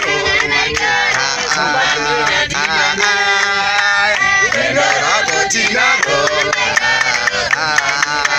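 A group of many voices singing together, with sharp percussive hits sounding throughout.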